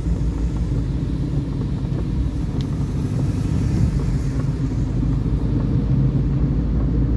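Car engine running and steady low road rumble, heard from inside the cabin while driving on a wet road.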